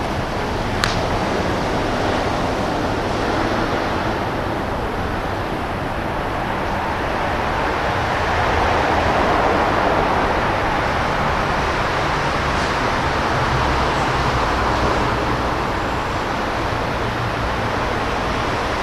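Steady rushing noise that swells a little midway, with one sharp knock less than a second in.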